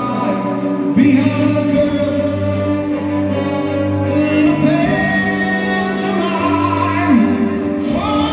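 Live symphony orchestra playing a sustained passage with a singer's voice over it, recorded from the audience in a large arena.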